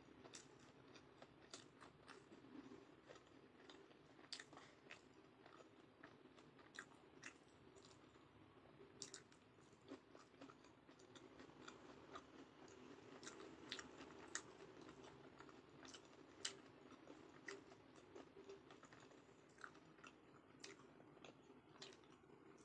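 Faint close-mouthed chewing of food, with soft, irregular wet mouth clicks.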